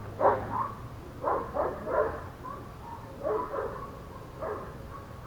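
A dog whining in a run of short, wavering cries.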